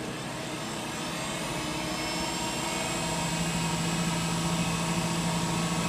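Emco Compact 5 CNC lathe spindle running and speeding up toward about 3,500 rpm, a steady machine hum that grows gradually louder, with a low steady tone coming in about halfway through. It runs quietly.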